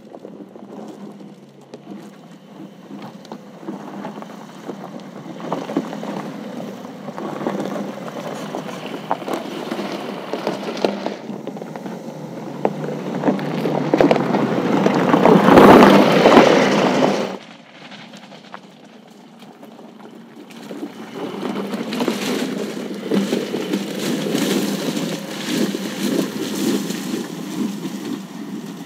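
Porsche 911 Dakar's 3.0-litre twin-turbo flat-six running as the car drives over loose gravel, its tyres crunching and scattering stones. It is loudest as the car passes close by about halfway through, cuts off suddenly, then builds again a few seconds later.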